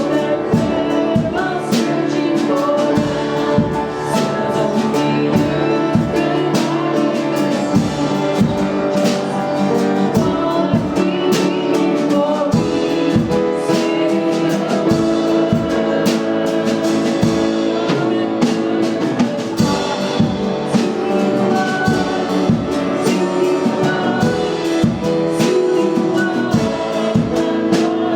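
Live worship music: a band with a drum kit keeping a steady beat under sustained instrumental chords, with singing.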